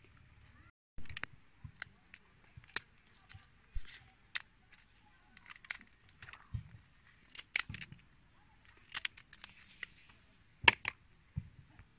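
Scissors snipping through insects, a run of short sharp clicks about one or two a second, the loudest near the end.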